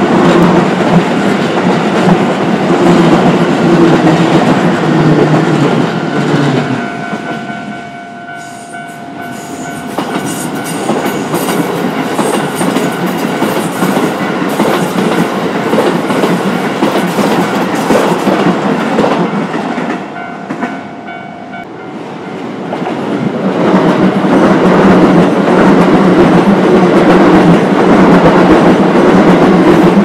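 Electric commuter trains passing over a level crossing at speed, wheels clattering over the rail joints. The crossing's warning bell rings in a steady tone, heard plainly where the train noise dips, about 7 to 10 seconds in and again around 20 to 22 seconds in. The train noise swells again from about 23 seconds as another train passes close by.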